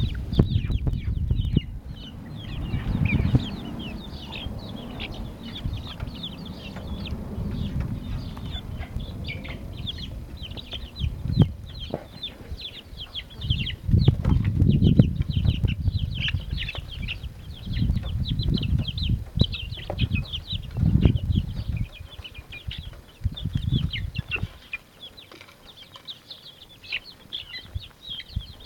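Young chickens peeping over and over in many short, high, downward-sliding calls. Bursts of low rumble come and go beneath them.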